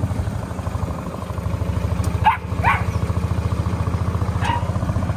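A dog barks three short times: twice in quick succession a little over two seconds in, and once more near the end. Under the barks an engine idles with a steady low chug.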